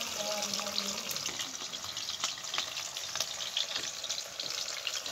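Fish pieces deep-frying in hot oil in a steel karahi: a steady sizzle with many small crackling pops.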